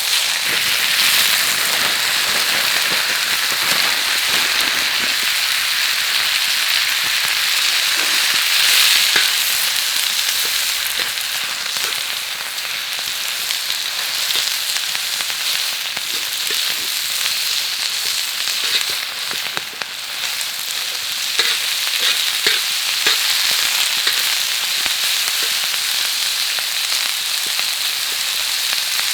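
Yakisoba noodles frying on a hot iron griddle over a campfire: a steady sizzle with scattered small clicks and pops.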